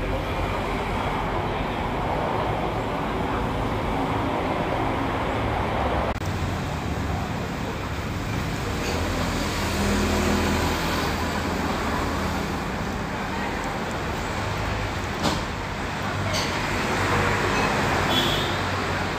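Steady road traffic noise from passing vehicles, with one sharp click about fifteen seconds in.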